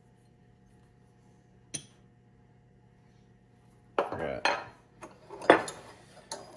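Metal wrenches clinking and clattering against each other as one is picked out for a hose fitting. There is a single light click, then a quick run of clinks starting about four seconds in.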